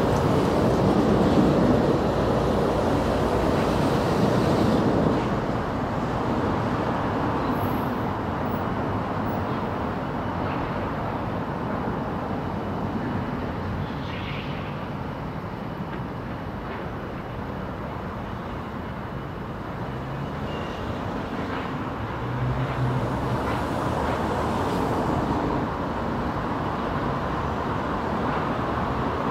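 Steady outdoor rumble as three coupled Class 450 Desiro electric multiple units approach along the main line, with a low hum coming in about two-thirds of the way through as the train draws nearer.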